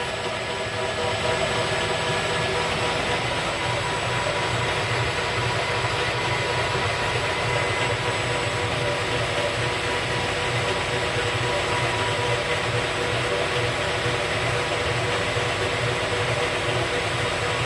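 Machine tool running steadily while facing the end of an aluminium puck blank: an even running sound with a few steady tones and a regular low pulsing.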